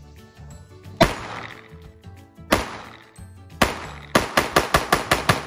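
Glock 17 9 mm pistol, set in a KIDON conversion kit, firing: three single shots about a second apart, then a fast string of about seven shots near the end, emptying the 10-round magazine. Background music runs under the shots.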